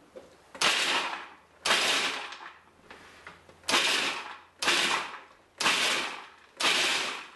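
Cuisinart food processor pulsed six times, its blade chopping walnuts into coarse chunks; each pulse starts sharply and fades away, about a second apart, with a longer pause after the second.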